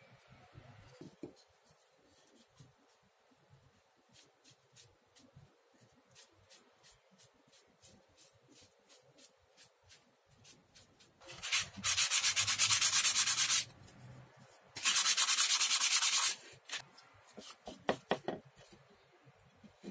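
Cloth rubbing finish into a wooden saw handle: light separate strokes at first, then two loud spells of fast rubbing, each about two seconds long. A few light knocks follow near the end.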